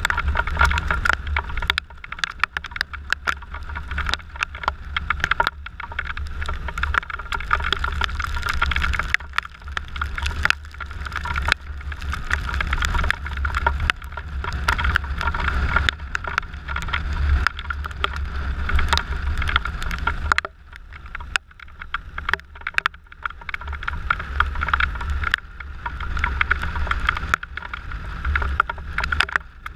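Wind rumble and buffeting on the camera microphone of a maxi-scooter riding at speed in the rain, mixed with the hiss of tyres on the wet road and irregular crackles of raindrops striking the camera. The rumble eases briefly about two-thirds of the way through.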